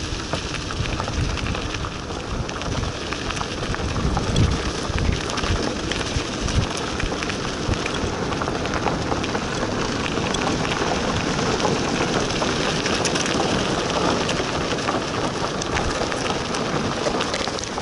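Bicycle rolling fast down a gravel road: a steady rush of tyre noise with many small crackles and rattles, cutting off abruptly near the end.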